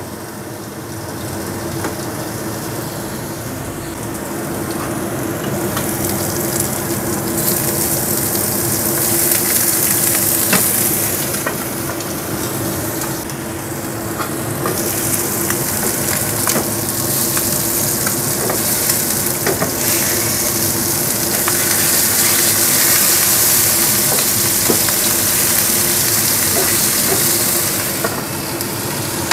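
Fish frying in hot oil in a pan: a steady sizzle that grows louder about six seconds in and stays strong until near the end, over a steady low hum.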